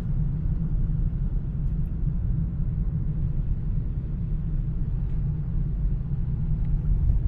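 Steady low rumble inside a moving car's cabin: engine and tyre noise on a wet road, at an even level with a faint hiss above it.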